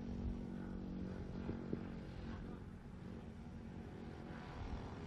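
A steady low engine drone, with a couple of faint clicks about one and a half seconds in.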